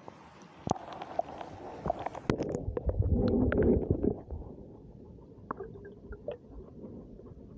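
Muffled underwater rumbling and gurgling heard through a camera submerged beneath river ice, with scattered knocks and clicks; the rumble is loudest from about two and a half to four seconds in, then settles to a faint murmur.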